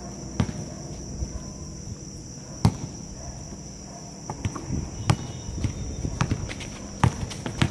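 Basketball bouncing on a hard outdoor court: several sharp thuds spaced irregularly, a second or two apart, as the ball is dribbled and passed. A steady high-pitched tone runs underneath.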